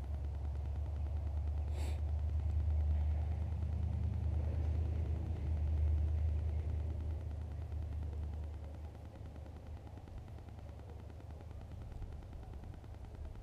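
Wind buffeting the microphone: a low, uneven rumble that swells and eases, dying down over the last few seconds, with one faint click about two seconds in.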